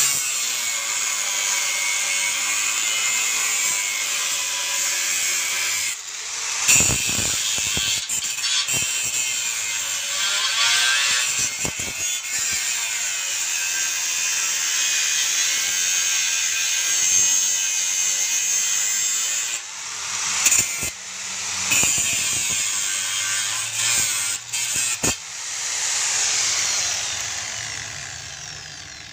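Bosch GWS 060 angle grinder cutting through a rusty steel angle with its cut-off disc: a steady, high-pitched grinding noise with a few brief dips, then the motor winding down near the end.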